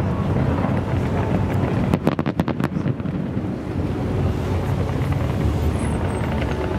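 Fireworks display: a steady low rumble of bursts with wind buffeting the microphone, and a quick string of sharp cracks about two seconds in.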